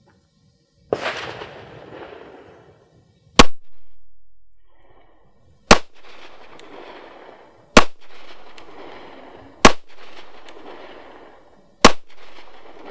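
FN Five-seveN pistol firing five 5.7x28mm SS197 rounds, about two seconds apart, each sharp crack trailing off in echo. A softer burst of noise comes about a second in, before the first shot.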